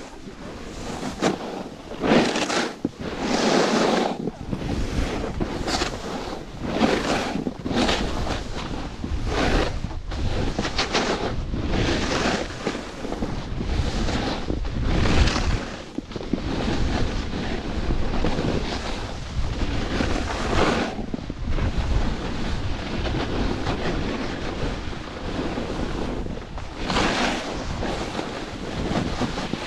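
Wind rushing over the camera microphone and a Capita Spring Break Slush Slasher snowboard's edges scraping across packed, chopped snow, swelling in repeated surges as it carves turn after turn.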